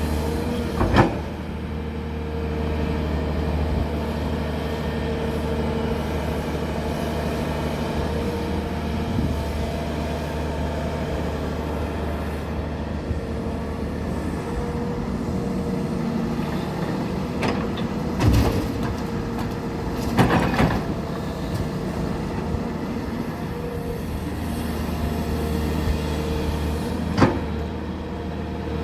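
Heavy diesel engines of an excavator and a dump truck running steadily, with a handful of sharp metallic clanks scattered through, two pairs of them close together past the middle.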